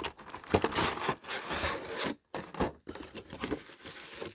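A cardboard model kit box being opened and its contents handled: irregular scraping and rubbing of cardboard, with a few light knocks.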